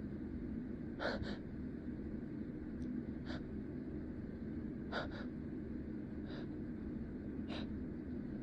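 A person's short, sharp gasping in-breaths and sniffs, some in quick pairs, every second or two: the build-up of a sneeze that is being held back.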